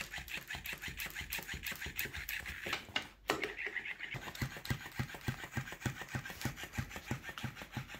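Nepfaivy USB-rechargeable plush flopping-fish cat toy running, its motor flapping the tail with a rhythmic clicking whir of about five beats a second. The rhythm breaks off briefly about three seconds in, then carries on.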